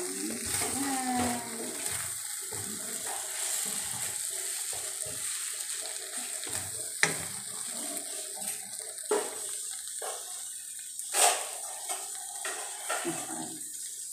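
Beef and green bell pepper stir fry sizzling in a wok with a steady hiss, stirred with a wooden spatula that scrapes and knocks against the pan several times, the loudest knock about eleven seconds in.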